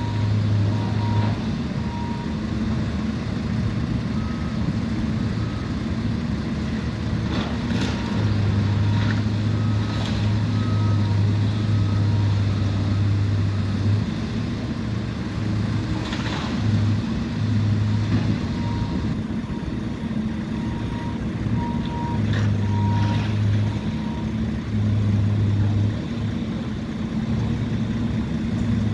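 Heavy diesel demolition machinery running, its low engine drone swelling and easing in spells. A backup alarm beeps faintly in runs, and a few sharp metal clanks and knocks break through.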